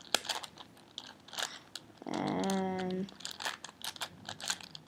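Plastic layers of a 4x4x4 Rubik's cube being turned by hand, a quick, irregular run of sharp clicks and clacks. About two seconds in there is a drawn-out hummed or voiced sound lasting about a second.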